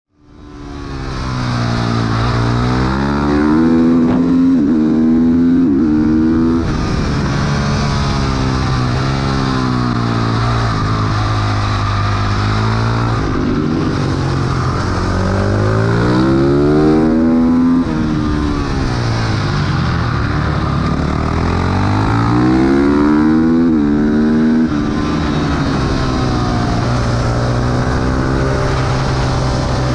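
Motorcycle engine heard onboard at speed on a track, its pitch repeatedly climbing under acceleration and then dropping back through shifts and off the throttle into corners, with a steady rushing hiss.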